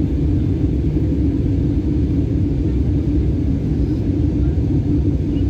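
Airbus A320-200 cabin noise in flight at altitude: a steady, low rumble of engine and airflow noise heard from a window seat.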